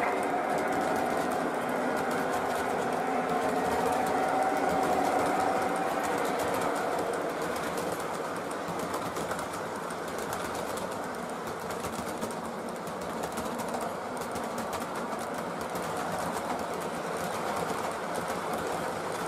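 O gauge model freight train, a string of hopper cars, rolling past on three-rail track: a steady rumble of metal wheels on the rails with rapid light clicking, and a faint steady tone for the first several seconds.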